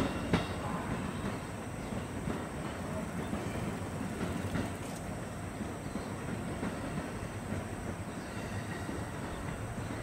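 Rumble of the Sunrise Seto/Izumo sleeper train, a 285-series electric multiple unit, running away along the track, steady with faint rail clatter and easing off a little toward the end. A single sharp knock sounds just after the start.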